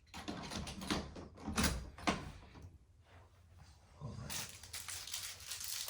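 A door handle set being fitted onto a wooden door: a few knocks and clicks as the handle's square spindle and rods are pushed into the latch, then a steady rubbing rustle as it is handled into place.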